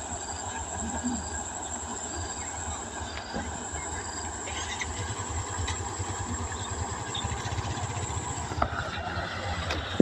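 New Holland 8070 rice combine harvester running steadily: a deep engine rumble with a constant high whine. The whine stops about a second before the end, and a couple of sharp clicks follow.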